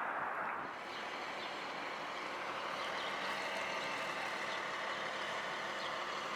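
Light rail train running, a steady rolling noise with faint steady tones over it.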